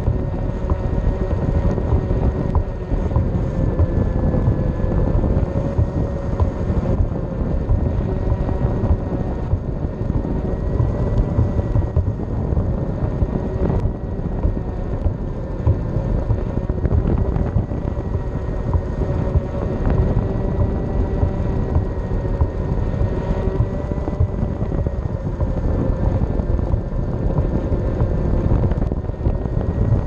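Electric board's hub motor whining steadily while riding, its pitch drifting slightly with speed, over a heavy rumble of the wheel on concrete and wind on the microphone.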